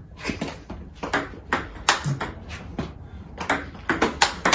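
Table tennis ball clicking off the bat and bouncing on the table in quick forehand strokes, several sharp knocks a second, often in close pairs. The bat is faced with XIOM Omega VII China Ying, a very hard 60-degree sticky rubber that the player finds the ball does not sink into.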